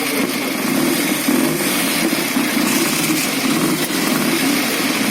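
Jawa motorcycle engines running at a steady idle.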